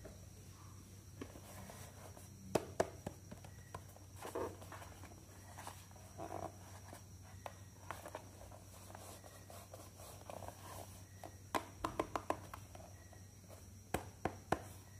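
Hard plastic toy iron handled and turned over in the hands: scattered sharp clicks and taps of plastic, some in quick runs of three or four, with soft rubbing between, over a faint steady hum.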